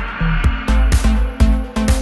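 Electronic dance music with a heavy bass and a steady beat, about two beats a second.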